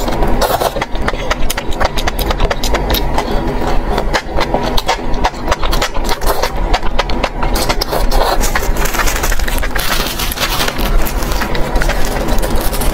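Close-miked slurping and chewing of spicy meat-wrapped enoki mushroom skewers: many quick wet smacks and clicks, over a steady low hum.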